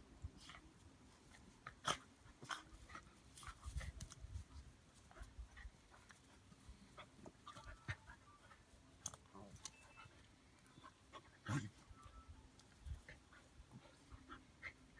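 Two dogs, a Romanian shepherd dog and a small dog, play-fighting: faint panting and scuffling with many short, scattered snaps and clicks, and one louder brief sound about three quarters of the way through.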